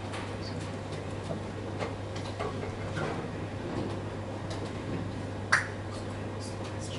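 Room tone of a quiet lecture room: a steady low mechanical hum with scattered small clicks and taps, and one sharper click about five and a half seconds in.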